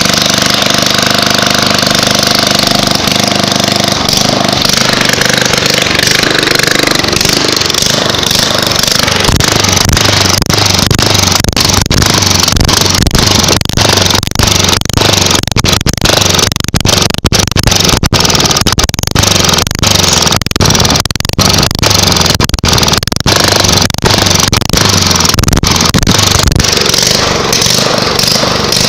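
Webb lawnmower's four-stroke overhead-valve petrol engine running with no exhaust fitted, pretty noisy. It runs steadily at first, then from about nine seconds in turns louder and rougher, with a fast, uneven crackle.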